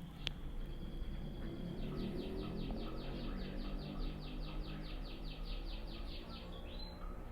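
A small bird calling high-pitched: a held note, then a rapid even trill of about five chirps a second for about five seconds, over a low background rumble.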